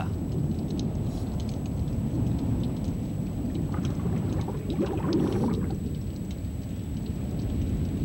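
Sea water wash: a steady low rumbling surge with faint scattered crackles and small splashes, a little louder about halfway through.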